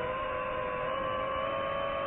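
DJI FPV drone's motors and propellers whining steadily in flight, the pitch creeping slowly upward.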